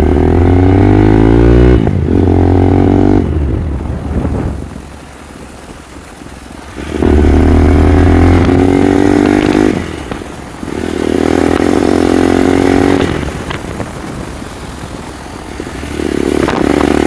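Motorcycle engine revving up in four surges, easing back to a lower run between them.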